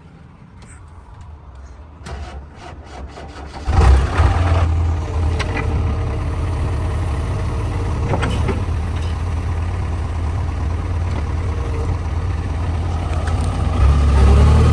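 JCB 3DX backhoe loader's diesel engine starting about four seconds in, after a few faint clicks, then running steadily and revving up near the end.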